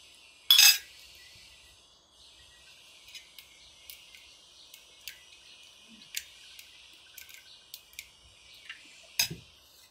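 Scissors snipping and cracking a crab claw's shell: one loud crack about half a second in, then a string of short, sharp clicks and snaps, and a fuller crack near the end. Under it runs a steady high background hiss.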